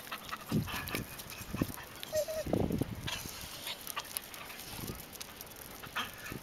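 Indian street dogs play-fighting close by: a short high whine about two seconds in, among several brief low rough noises.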